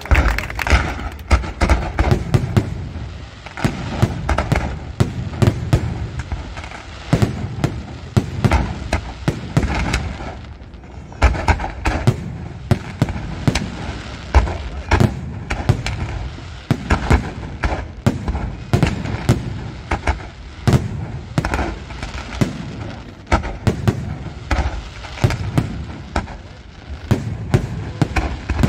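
A fireworks display from Pirotecnia del Mediterraneo going off in a rapid, near-continuous barrage of shell bursts and bangs. The barrage thins briefly about ten seconds in.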